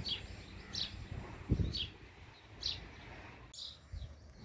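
A bird calling with short, high chirps, about one a second. There is a single dull thump about a second and a half in.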